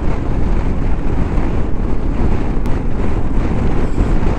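Strong crosswind buffeting the microphone of a rider on a moving Moto Guzzi V85TT motorcycle, a loud, steady rushing noise that covers the bike's engine.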